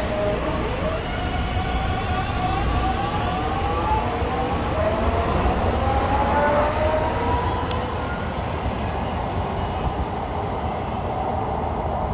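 Light-rail train pulling away from the station platform: its traction motors give a whine that climbs in steps as the train speeds up, over a low rolling rumble. The whine fades out about seven or eight seconds in as the train leaves.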